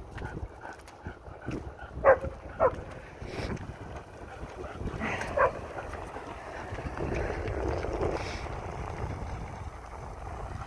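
Dog barking: two sharp barks about two seconds in, half a second apart, and one more a few seconds later, over a low rumble of wind on the microphone.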